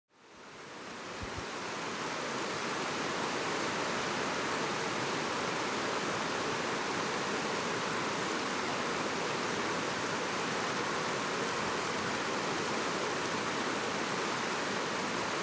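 Steady rushing of a river, fading in over the first couple of seconds and then holding even.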